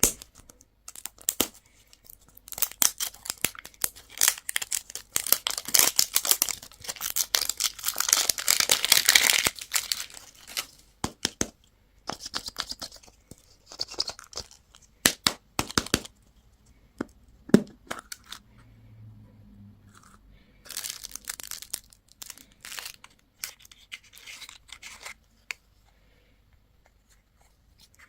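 Plastic candy wrappers and packaging being torn open and crinkled, with a dense stretch of crackling a few seconds in and scattered sharp clicks and rustles after.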